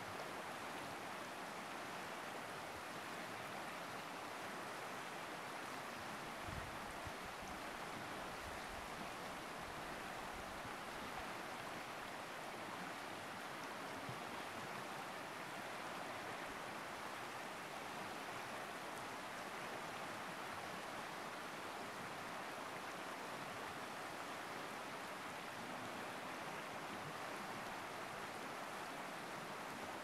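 Wide, fast river rushing steadily over shallow rapids: a constant, even roar of broken white water.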